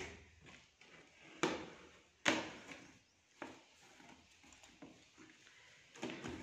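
Cardboard carton being handled and opened: a few short scrapes and knocks of the stiff cardboard flaps and box, the loudest a little over two seconds in.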